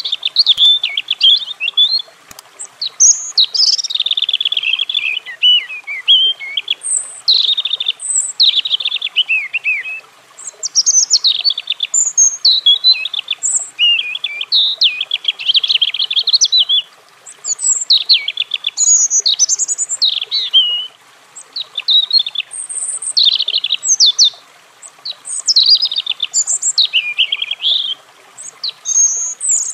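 European robin singing: a string of high, rapid, warbling phrases, each a couple of seconds long and sliding up and down in pitch, with short pauses between them.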